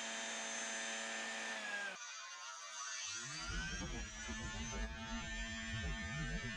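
Impeller fan of a 3D-printed air umbrella running at a steady speed: a motor hum with a high whine. About two seconds in the sound breaks off abruptly, and a second later the fan is running again with a loud, uneven low rumble under it.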